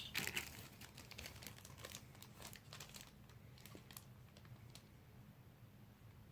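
Faint crinkling and rustling of packaging being handled, densest in the first two seconds, then only a few scattered light clicks.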